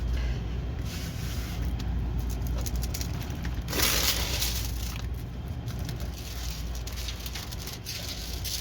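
Rustling and crinkling of a diamond painting kit's packaging and canvas being handled, loudest in a burst about four seconds in, over a steady low hum.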